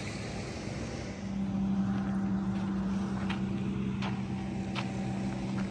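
An engine running steadily: a low, even hum that comes up about a second in and holds, with a few sharp clicks over it.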